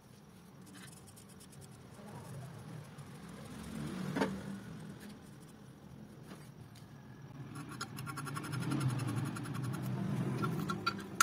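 Light metal handling: a single click about four seconds in, then fast fine ticking and scraping as a steel hex plug is screwed by hand into the re-faced aluminium crankcase boss.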